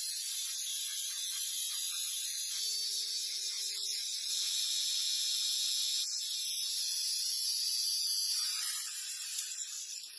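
Steady, high-pitched hissing noise that eases off near the end.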